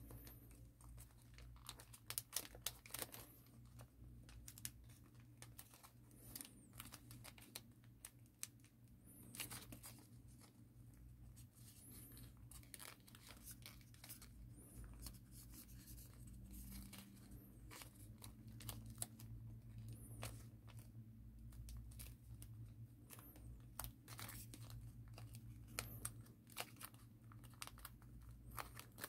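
Faint rustling and crinkling of origami paper being turned, bent and creased by hand, in many small irregular crackles over a low steady hum.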